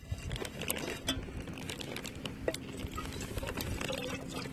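Wood fire crackling in a KIHD Basic Plus stick-burning camp stove: an irregular run of small crackles with a few sharper snaps as the sticks burn.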